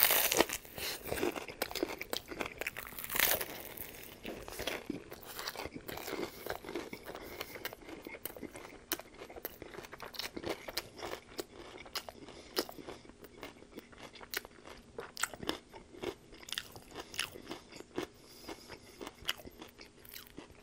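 A person biting into a panko-breaded fried chicken shell and chewing it, with a crunch at the bite and a run of small crunches as the chewing goes on. The loudest crunches come at the first bite and again about three seconds in.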